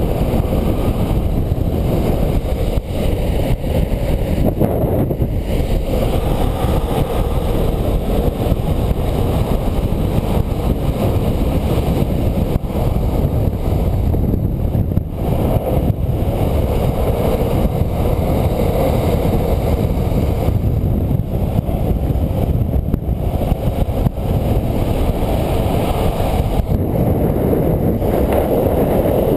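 Longboard's urethane wheels rolling fast on asphalt, a steady loud roar, with wind rushing over the microphone.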